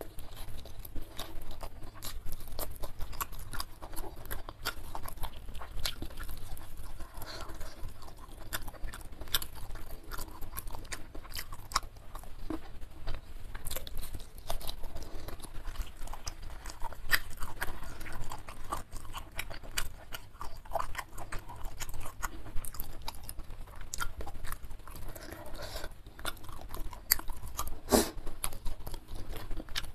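Close-miked chewing and crunching of crispy fried chicken (ayam geprek) eaten by hand with rice: a steady run of short crunchy bites and mouth clicks, with one louder crunch near the end.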